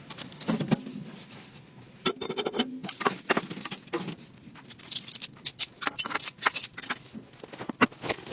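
Irregular clicks, taps and rustling, some in quick runs, as of things being handled at close range.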